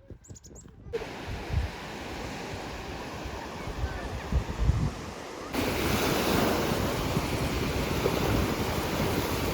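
Waves washing onto a Lake Huron beach, with wind buffeting the microphone. The surf noise starts abruptly about a second in and jumps louder about halfway through.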